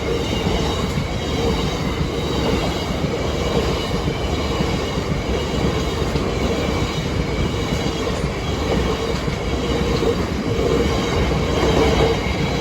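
A train passing over a level crossing: a steady loud rumble of wheels on rail with a faint high whine above it.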